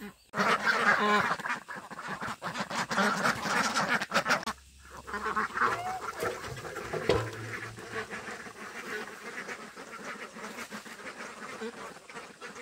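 A flock of birds calling, many short overlapping calls at once. They are loudest over the first four seconds, drop off briefly about four and a half seconds in, then carry on more softly.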